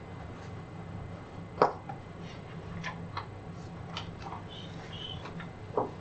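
Quiet room tone with a steady low hum and a handful of short clicks and knocks, the sharpest about one and a half seconds in.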